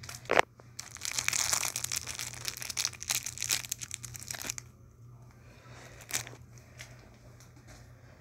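Thin clear plastic bag crinkling and crackling as it is handled and opened by hand, with a sharp click about half a second in; after about four and a half seconds the crinkling stops, leaving only a few light ticks.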